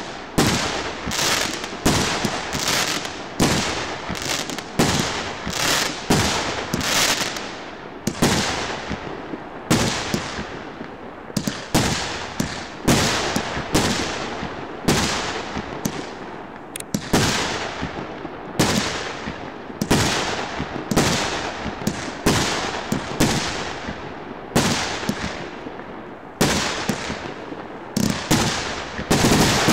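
A 49-shot, 1.5-inch consumer fireworks cake (TT-0318-1 'Фейерверк 49') firing shot after shot, about one or two bangs a second, each bang fading out briefly before the next.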